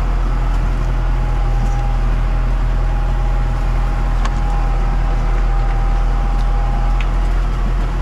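Valtra tractor's four-cylinder Sisu diesel engine running steadily under load, a low even drone with a faint steady whine above it and a few light ticks.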